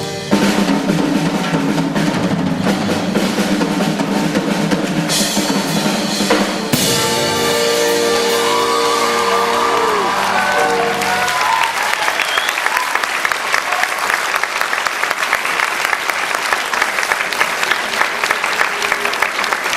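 School concert band playing the closing bars of a piece with drums, ending on a held chord, then audience applause from about eleven seconds in.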